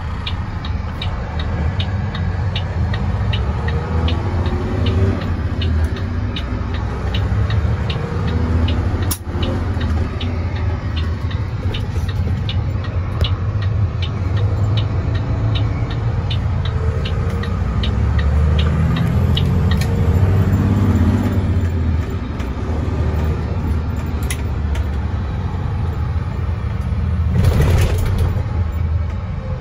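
Mack semi truck's diesel engine pulling hard, its revs climbing and dropping several times as the driver floats the 10-speed manual transmission up through the gears without the clutch. A regular ticking runs through the first half, and there is a short hiss near the end.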